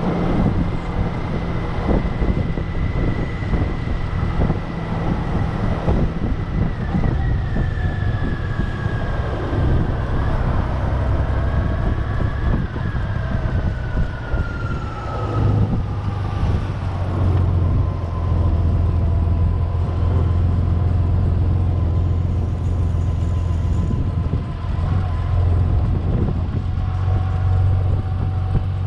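Honda Gold Wing touring motorcycle ridden at low speed, its engine running with a steady low hum under wind and road noise. A thin whine falls slowly in pitch through the middle, and the low hum grows a little louder later on.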